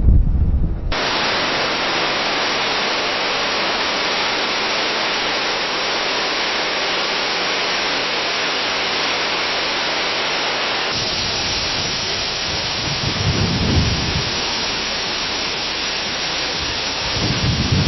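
Leaves rustling steadily in the wind, a dense even hiss, in two recordings that change abruptly about a second in and again about eleven seconds in. In the second, low wind gusts swell up twice, near the middle and near the end.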